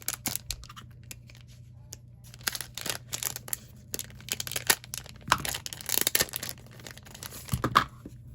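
Something being opened by hand: irregular bursts of tearing and crinkling, with scattered sharp clicks, loudest a little past the middle and near the end.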